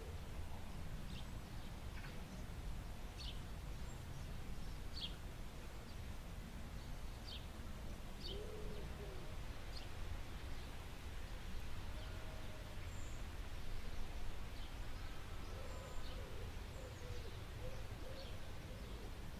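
Faint night-time nature ambience: an owl hooting softly several times, mostly in the second half, with short high bird chirps scattered through the first half over a steady low rumble.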